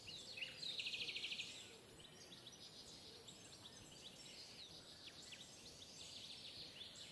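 Small birds chirping faintly over quiet outdoor background hiss, with a rapid trill about a second in.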